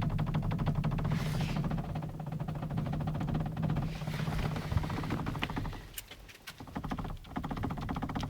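Renault Trafic van running, with a fast, even clatter and a few sharp knocks past the middle: the knock of a broken tie rod end.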